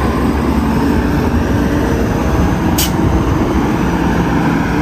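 Heavy multi-axle dump truck's diesel engine running steadily as the truck moves, a low rumble throughout, with a short hiss about three seconds in.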